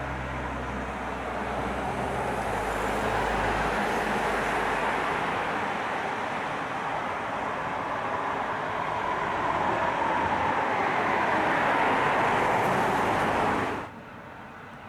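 Road traffic: vehicle engine and tyre noise swelling as it passes, with a low rumble early on, then cutting off suddenly near the end.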